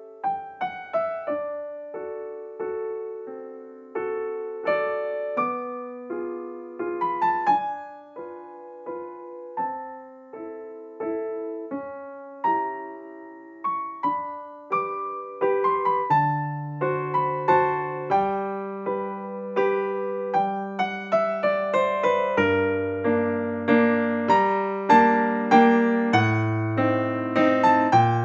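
Background piano music: a gentle melody of single struck notes, with a lower bass line joining about halfway through.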